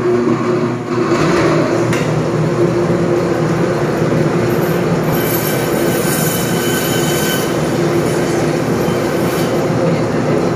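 Butcher's meat band saw running with a steady hum while its blade cuts through a goat leg. A harsher high hiss comes in about halfway and fades a couple of seconds later.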